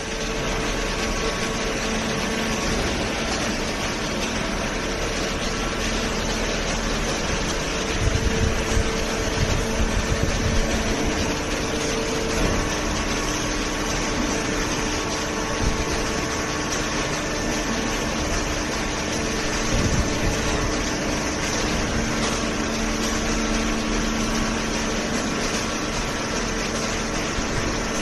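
Cardboard baling line running: the hydraulic baler's power unit and the feed conveyor give a steady mechanical hum with a few faint steady tones. Low knocks come about eight to eleven seconds in and again near twenty seconds.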